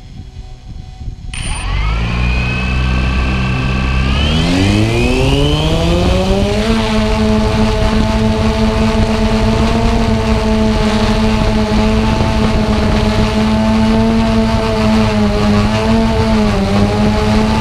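Xiro Explorer G quadcopter's motors and propellers spinning up about a second in, the whine rising in pitch in two steps as it lifts off, then holding a steady pitch as it climbs, with a brief dip near the end. Heard from aboard the drone itself.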